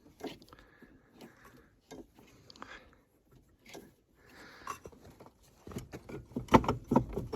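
Snowmobile secondary clutch and drive belt being turned by hand, giving scattered light clicks and rubbing, with a run of louder clacks near the end.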